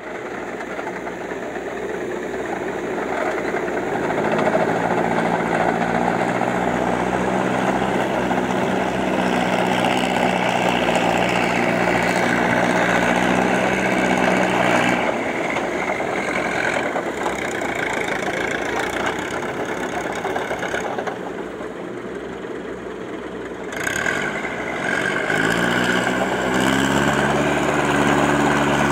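Massey Ferguson 185 tractor's four-cylinder diesel engine running under load as it ploughs through a flooded paddy, with mud and water churning around the wheels. The engine note fades for a few seconds, then climbs as it speeds up near the end.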